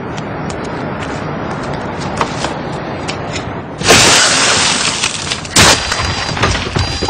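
Steady background noise with faint ticks. About four seconds in, a car's side window is smashed: a sudden loud crash of shattering glass that dies away, then a second loud bang about a second and a half later.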